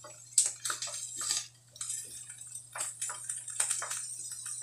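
Wooden spatula stirring and scraping mushrooms and carrots in a frying pan in quick, irregular strokes, over a steady sizzle of frying.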